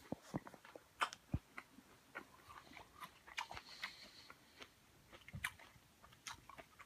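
Faint, irregular small clicks and crackles, scattered unevenly, with quiet room tone between them.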